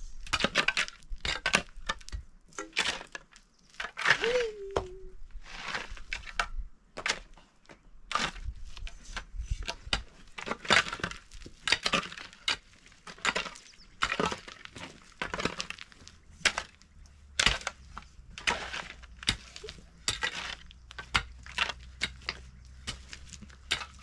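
Metal shovel and hoe blades digging into stony soil: irregular scrapes and chops, with stones clinking against the steel.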